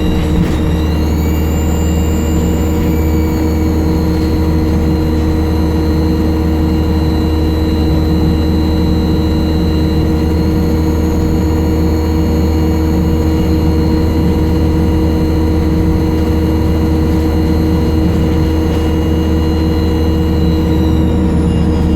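ADL Enviro 200 bus's diesel engine running under way with a loud, high turbo whistle over its low drone. The whistle rises in pitch about a second in, holds steady, and falls away near the end.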